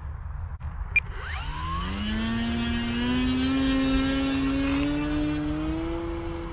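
Electric motor and propeller of an E-flite Timber RC plane spooling up for takeoff, its whine rising steadily in pitch as the throttle is opened, with a brief click about a second in.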